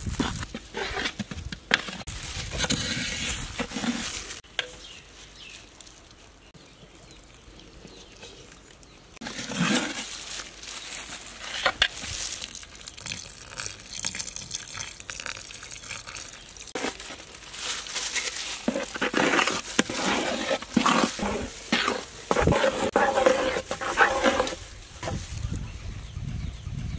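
A metal spoon stirring and scraping flour, butter and milk into pancake batter in a large metal pot, in irregular strokes with clinks, while milk is poured in. It is quieter for a few seconds after the first few seconds, then busier again.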